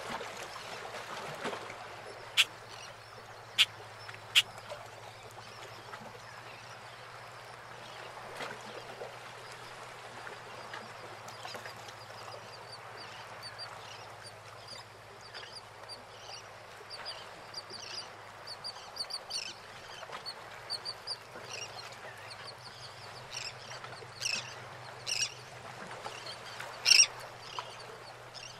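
Harbour water lapping around moored wooden fishing boats, with a faint steady low hum. Three sharp clicks come a few seconds in; later a run of short high bird chirps sets in, and several louder bird calls stand out near the end.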